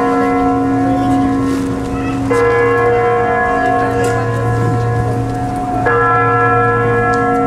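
A large bell tolling slowly as a memorial toll for the war dead: struck twice, about three and a half seconds apart, each stroke ringing on until the next.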